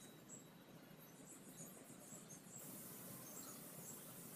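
Near silence: faint outdoor ambience with short, high-pitched chirps a few times a second and a thin high hiss that grows a little louder about halfway through.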